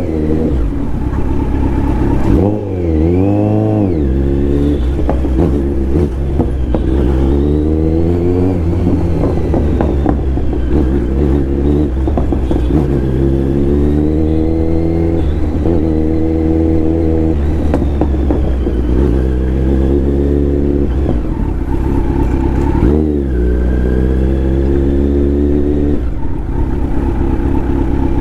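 Kawasaki Z900 inline-four motorcycle engine under way, its pitch climbing and dropping again and again as it accelerates and shifts. A quick throttle blip about three seconds in, and another later on.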